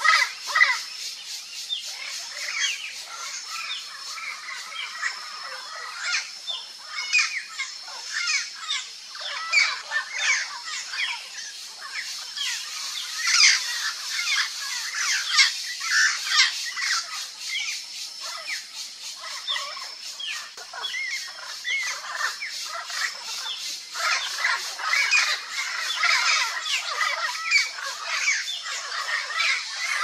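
Turquoise-fronted parrot (Amazona aestiva) calling: a rapid, unbroken run of short squawks and chattering notes.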